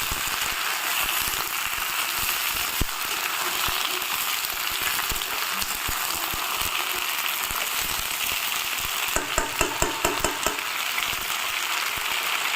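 Aloo parwal sabzi (potato and pointed gourd curry) frying in hot oil in a pan, with a steady sizzle. A quick run of about seven sharp clicks comes about nine seconds in.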